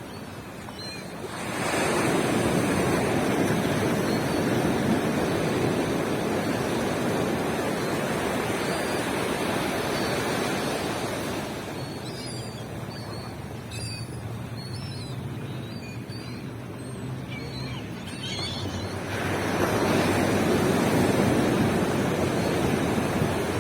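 Ocean surf washing onto a beach: a wave surge builds about a second and a half in and eases off, then a second surge comes in near the end.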